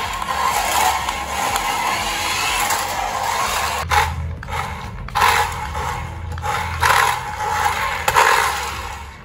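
Toy RC car's small electric motor and plastic gearbox whirring as it drives across a marble floor, its wheels rolling on the hard stone, surging in bursts of throttle with brief cut-offs about four and five seconds in.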